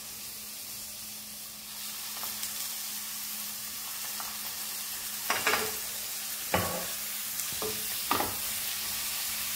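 Sliced shallots and spice masala sizzling steadily in a nonstick pan. About halfway through, a spatula starts stirring, scraping and knocking against the pan several times.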